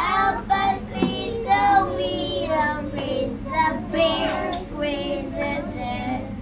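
Young children singing a song with wavering, held notes, with a woman's voice among them.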